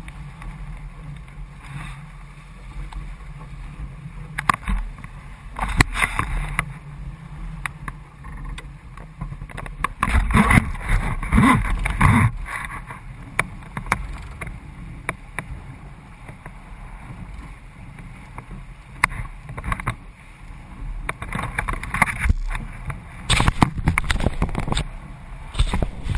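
Water splashing and sloshing around a kayak in irregular bursts, over a steady low rumble of moving water.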